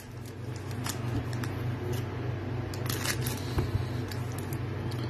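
Shiny plastic wrapper of a Panini Revolution trading card pack crinkling and tearing as it is opened by hand, with scattered crackles, over a steady low hum.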